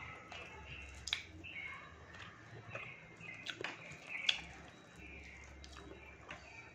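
Eating rice by hand from a ceramic plate: fingers mixing, squeezing and scooping the rice, with chewing and a few sharp clicks of fingers or nails against the plate.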